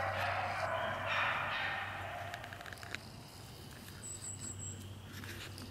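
Beagles barking and baying on a rabbit's trail, fading out after about two seconds. About four seconds in there is a brief run of four high chirps.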